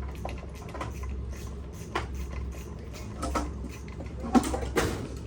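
Scattered clicks and clanks of hand tools working on metal pump parts, with two louder knocks near the end, over a steady low hum.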